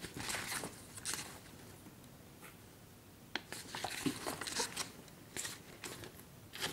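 Glossy magazine pages being flipped by hand: a string of short, uneven papery flicks and rustles.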